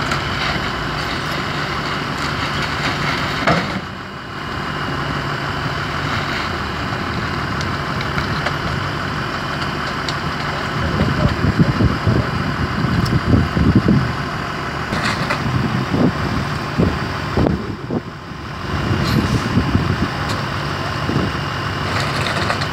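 Heavy tow truck's diesel engine idling steadily. Irregular low rumbles come in from about 11 to 14 seconds in and again around 19 seconds in.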